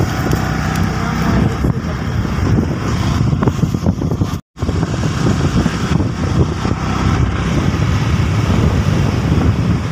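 Wind buffeting the microphone of a phone held by a rider on a moving two-wheeler, mixed with road and engine noise. The sound cuts out completely for a moment about four and a half seconds in.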